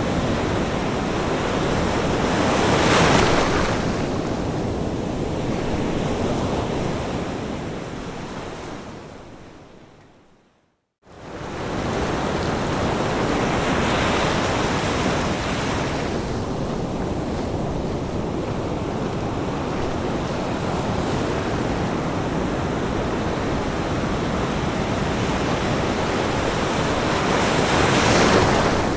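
Ocean surf breaking and washing up a beach: a steady rush that swells louder with each breaker, about three times. About a third of the way in it fades out to silence, then cuts straight back in.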